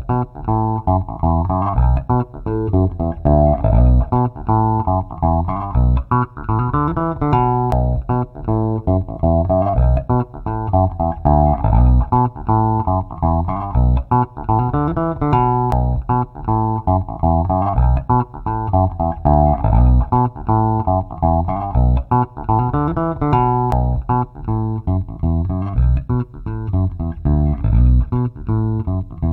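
Funk electric bass loop at 120 bpm playing on repeat, its phrase coming round about every eight seconds. It is heard through an equalizer with a tall, narrow boost in the mids, which by the end has been turned into a narrow cut.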